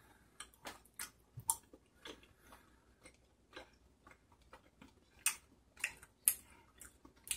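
Close-up chewing of chewy rice cakes (tteokbokki): quiet, irregular mouth clicks and smacks, with a few sharper clicks in the second half as a pick pokes around in the paper cup.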